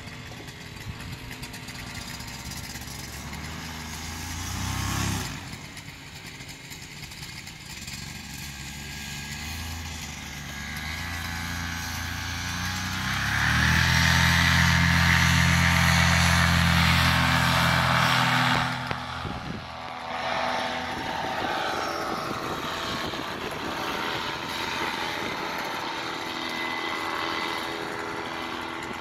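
Paramotor engine running during a powered paraglider takeoff. It rises briefly about five seconds in, runs at full throttle for about five seconds from roughly halfway through while the pilot runs and lifts off, then drops back sharply and carries on as a steadier, fainter drone as the paraglider climbs away.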